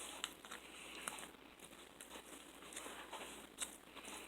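Faint crinkling of takeout food packaging with scattered light clicks, as the food container is handled during eating.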